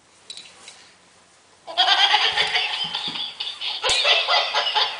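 Battery-powered plush toy dog playing its recorded laughter, starting a little under two seconds in and going on loud and continuous, with a fast fluttering cackle.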